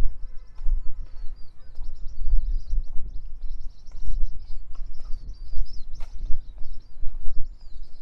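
Many small birds chirping steadily in short, quick calls, over the low, uneven thudding of footsteps from someone walking.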